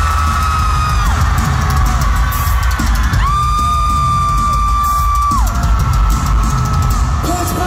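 Loud live rock music through an arena PA: heavy drum kit and bass with guitar, with a long high note held over it from about three seconds in, and a crowd cheering.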